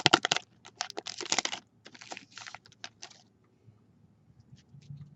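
Baseball card pack being worked open and cards handled: a run of light clicks and short rustles of foil wrapper and card stock over the first three seconds, then only a few faint ticks.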